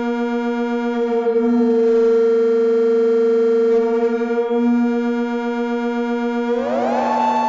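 Electronic synthesizer music: a steady drone of held tones whose low note swells twice, with a cluster of tones gliding upward near the end.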